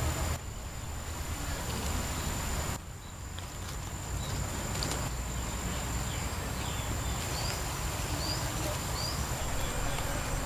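Outdoor woodland ambience: a steady high-pitched insect drone over a low background rumble, with three short high chirps in the second half.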